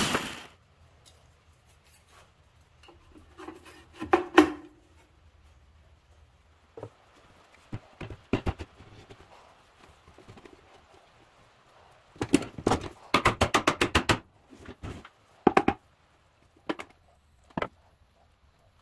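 Wooden boards and tools handled on a workbench: scattered knocks and clicks, with a louder clatter about four seconds in and a quick run of about ten clicks over two seconds past the middle.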